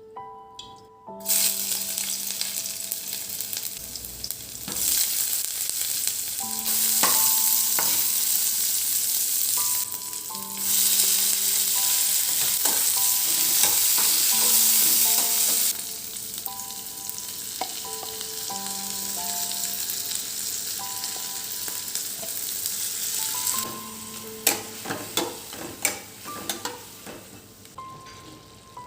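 A steady hissing noise, louder in two long stretches, with a few sharp clicks late on, over soft background music of sustained keyboard-like notes.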